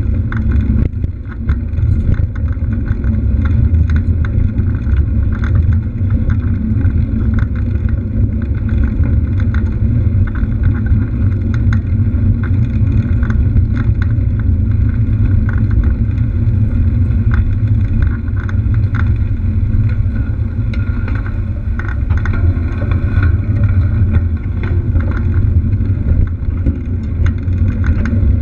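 Steady low wind rumble on a GoPro's microphone while riding a mountain bike fast, mixed with tyre noise and crackle from the bike rolling over concrete.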